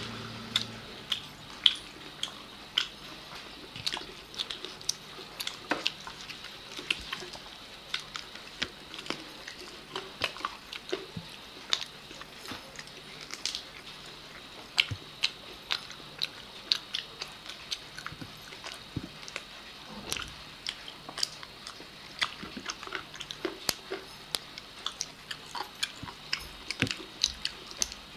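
Close-up eating sounds of two people eating rice and chicken leg pieces with their hands: chewing and biting, with many short, sharp mouth clicks and smacks.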